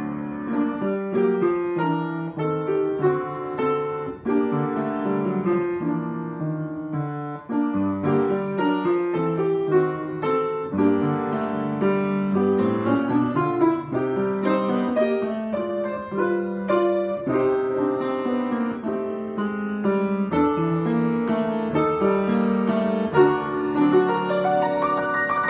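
Solo piano played with both hands: a steady stream of melody over chords, with no pauses.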